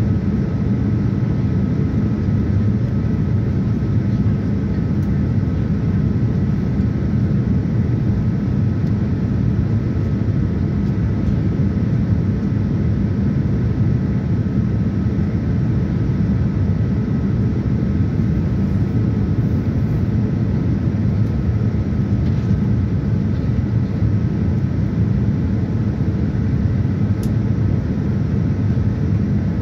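Steady cabin noise inside a Boeing 787-9 airliner in descent: an even low rumble of the engines and the air rushing past the fuselage, with a faint steady whine above it.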